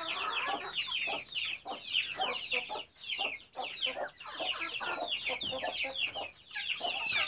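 A flock of chickens: many chicks peeping in a dense, unbroken chorus of short falling chirps, with hens clucking lower underneath.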